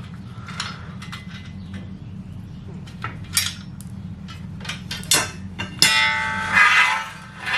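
Light metal clicks and taps as the steel garage door opener rail and its nuts are handled while it is taken apart, with one louder ringing metal clank about six seconds in. A low steady hum runs underneath.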